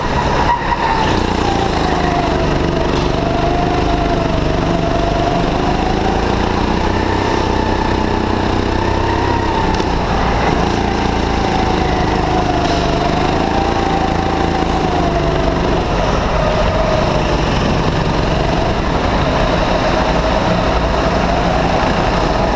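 Go-kart's motor running under the driver at racing speed, its pitch rising and falling as the kart speeds up on the straights and slows for the corners.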